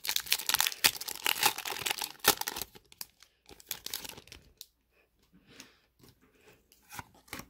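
A Pokémon trading-card booster pack's foil wrapper being torn open by hand and crinkling. There is dense crackling for the first two and a half seconds, then scattered quieter rustles and ticks as the cards are worked out of the wrapper.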